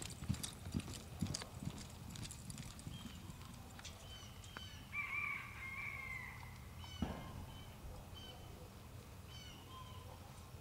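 Hoofbeats of a two-year-old reining horse loping on soft arena dirt, thudding regularly for about two seconds and then fading as it slows. Short bird chirps recur throughout, with a honking bird call about five seconds in and a single thump near seven seconds.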